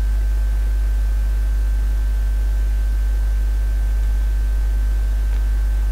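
Steady low electrical hum with a faint hiss and a thin, steady high-pitched whine: the background noise of the recording setup, with nothing else happening.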